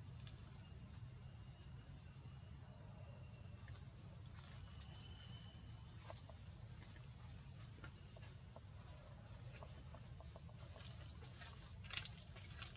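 Faint, steady high-pitched insect chorus, two continuous trilling tones over a low rumble, with a few short clicks near the end.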